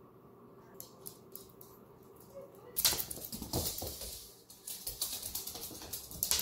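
A small dog's claws clicking and pattering on a wood floor as it plays and scampers. A few faint clicks at first, then louder and busier tapping and scuffling from about three seconds in.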